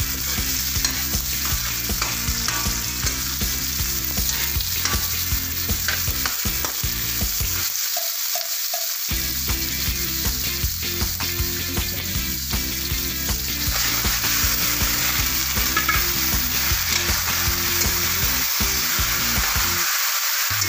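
Sliced onion, garlic and tomato sizzling in hot oil in a wok while a spatula stirs them. Later, raw chicken pieces are in the pan and the sizzle grows louder.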